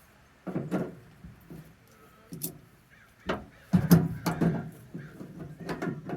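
Hand tools working a fuel sender loose: irregular clicks, knocks and short scrapes of pliers and knife against the fitting, loudest about four seconds in.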